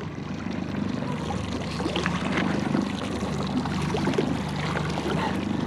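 Small boat's outboard motor idling steadily, with water sloshing and splashing.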